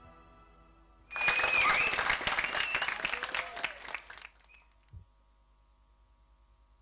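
Audience applause with cheers breaking out suddenly about a second in, just after the music fades out, and dying away after about three seconds. A single low thump follows near the end.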